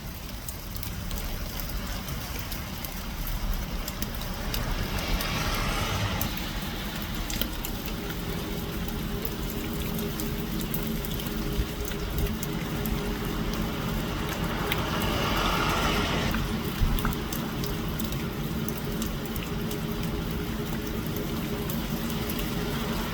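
Rain falling on a small patio pond, a steady hiss of drops on water, swelling louder twice for a second or so.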